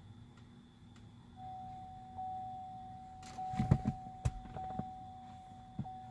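A steady electronic tone comes on about a second and a half in. A cluster of sharp clicks and knocks near the middle is the loudest sound.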